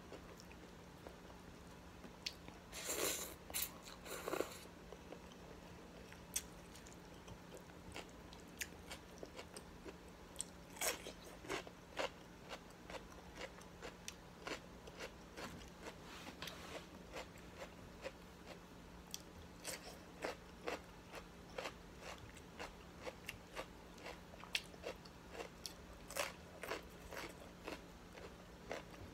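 A person biting and chewing crunchy raw vegetables close to the microphone: many short crunches and mouth clicks, with louder bursts of crunching about three to four seconds in and again around eleven seconds. A faint steady low hum runs underneath.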